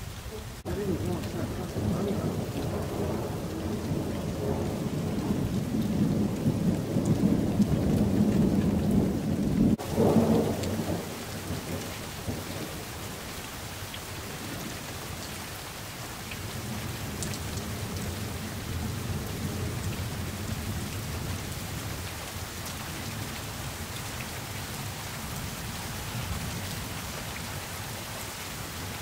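Thunder rumbling for about the first ten seconds, building to its loudest just before it cuts off suddenly, over steady rain. After that, steady rain falls on its own.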